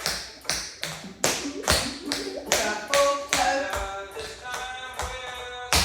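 Tap shoes striking a hard floor in a quick, rhythmic run of steps, about three strikes a second, as the tap routine is danced.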